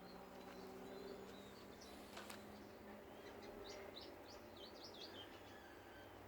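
Faint bird chirps over a quiet outdoor background: a quick run of short, high chirps, each falling in pitch, about three to five seconds in, with a single sharp click a little over two seconds in.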